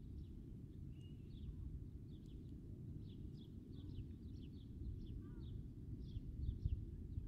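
Small birds chirping, with many short, quick calls repeating over a steady low rumble.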